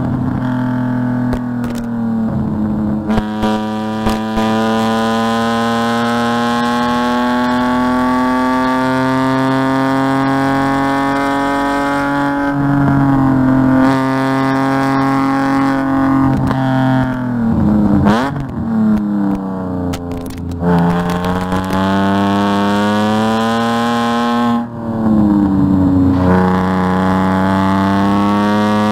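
Race car engine heard from inside the cabin on track, pulling hard with its pitch climbing slowly through the gears and dropping at each upshift. About two-thirds of the way in it falls away under braking with quick downshift blips, then climbs again.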